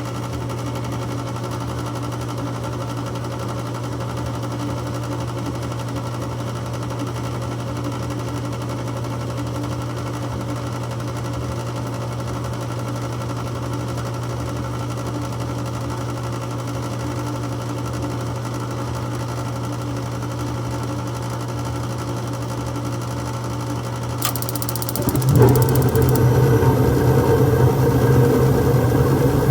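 Gas furnace running with a steady motor hum. About 24 seconds in there is a click and a brief high crackle, then a sudden louder, rougher rush sets in and keeps going. This is a furnace that keeps cycling on and off even though its flame sensor has been cleaned.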